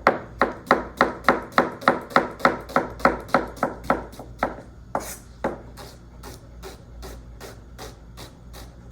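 Chef's knife dicing an onion on a cutting board, chopping in steady, even strokes about three a second. About five and a half seconds in, the strokes turn fainter.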